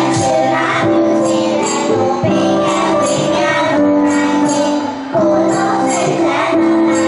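A group of children singing together over music with a slow, steady beat and jingling, tambourine-like percussion.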